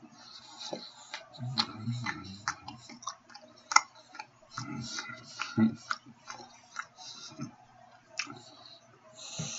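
Wet mouth clicks and lip smacks of someone chewing food close to the microphone, irregular and sharp, the loudest about four seconds in, with a few short low muffled mumbles between.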